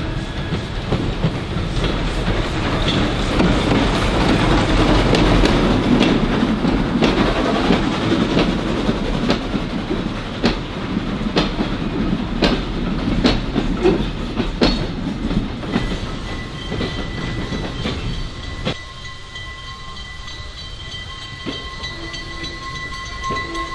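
Vintage wooden passenger coaches of a heritage train rolling slowly past close by, their wheels clacking over the rail joints. The rumble is loudest about five seconds in, then fades as the train moves away, leaving a faint steady whine.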